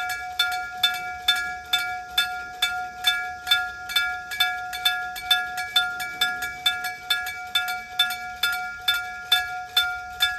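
Aluminium electromechanical bell at a Japanese railway level crossing, struck by its hammer a little over twice a second in an even rhythm, each stroke ringing with several steady tones: the crossing warning sounding.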